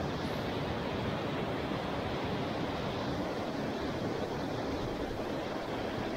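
Small mountain stream's water rushing steadily.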